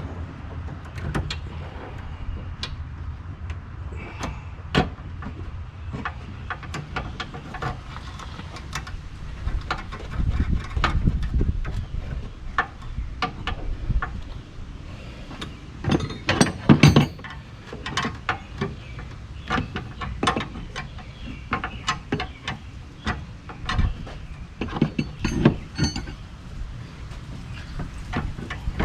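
Hand tools and metal parts being handled during reassembly of a car's A/C lines: irregular clicks, clinks and knocks, with a louder cluster about halfway through, over a steady low rumble.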